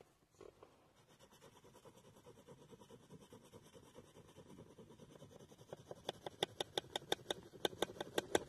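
A drawing stick in a holder scratching across paper in quick hatching strokes. The strokes are faint at first, then from about six seconds in they become louder, sharp and regular, about five a second.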